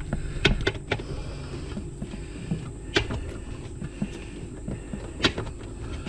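Thin plastic cord being pushed down a fridge's defrost drain hole, rubbing and scraping against the plastic drain, with a few sharp clicks about half a second, three seconds and five seconds in, over a low steady hum.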